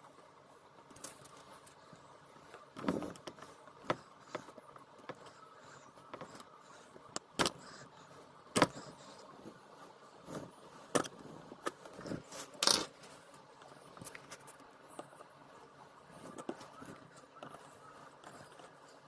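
Screwdriver and pliers clicking and scraping against the metal staples that hold a truck door's window scraper seal as they are pried out. There are irregular small scrapes, with several sharp metallic clicks near the middle.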